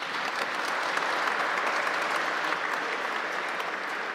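Audience applauding, breaking out suddenly and clapping steadily.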